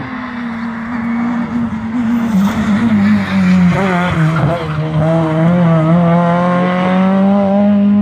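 Small hatchback rally car's engine at high revs as it comes through a junction at racing speed, the pitch dipping and wavering about halfway through, then climbing steadily as it accelerates away.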